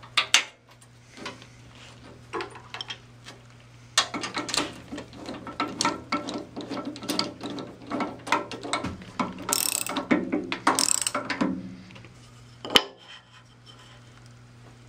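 Ratchet wrench clicking rapidly as bolts are run down, clamping thin brass shims between the jointer's base and casting. A single sharp click follows near the end.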